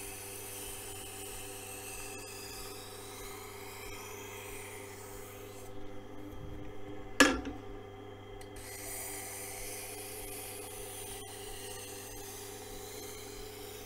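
Tormek sharpening machine's motor humming steadily while a knife blade in its jig is drawn lightly across the turning wheel with a thin scraping hiss. The scraping stops for about three seconds around the middle, where there is one sharp knock, then resumes.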